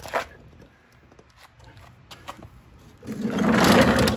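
A walk-behind lawn mower being tipped up onto its side on concrete: a few light knocks, then about three seconds in a loud scraping rush lasting just over a second as the deck and wheels drag and grind on the concrete.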